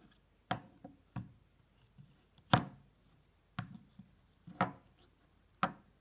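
Sharp knocks and clicks from a hand handling a small plastic SJ1000 action camera on a wooden tabletop, about one a second, with a few fainter ticks between. The loudest comes about two and a half seconds in.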